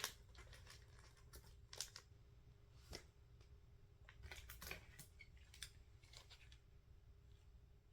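Faint scattered clicks and light rustles of small nail-kit tools and their packaging being handled, with a quick cluster of clicks about four and a half seconds in.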